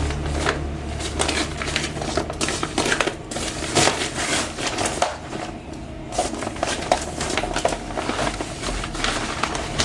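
Packaging being opened and handled: crinkling, rustling wrapping with many small knocks and clicks scattered throughout.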